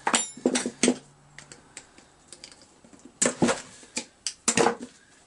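Sharp clicks and clatter of small metal hand tools, a screwdriver and round-nose pliers, being picked up, handled and set down on a workbench: three clicks in the first second, then a quick cluster of knocks from about three seconds in.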